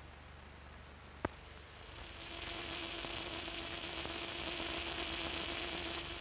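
Surface hiss of an early-1930s film soundtrack, with a single sharp click a little over a second in. From about two seconds in the hiss grows louder and brighter and a steady low tone joins it, both easing off near the end.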